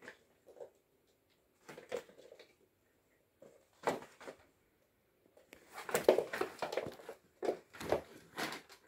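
Oriental kittens scampering and scuffling at play, their claws scrabbling on a doormat and curtain fabric. This comes as irregular bursts of rustling and light knocks, sparse at first and busy in the second half.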